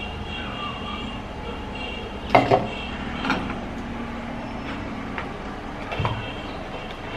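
Light knocks and clinks of kitchen utensils around a stainless steel mesh sieve over a plastic bowl as blended carrot pulp is strained. Two sharp knocks about two and a half seconds in are the loudest, with a few smaller clinks after, one of them a metal spoon on the sieve near the end.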